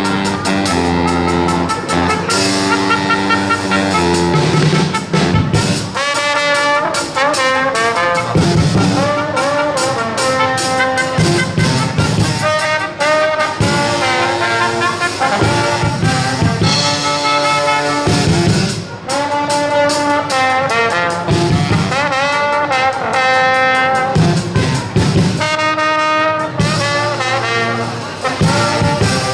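A brass band playing a loud, up-tempo tune, with trumpet and trombone lines over a steady beat.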